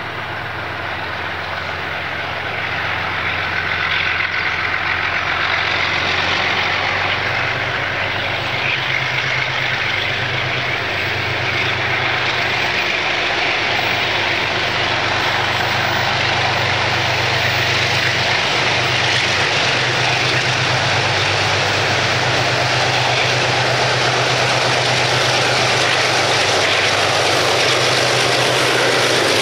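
Two KiwiRail diesel-electric locomotives hauling a coal train, their engines working hard as the train pulls away, a steady low drone with a rumble over it that grows gradually louder as they approach.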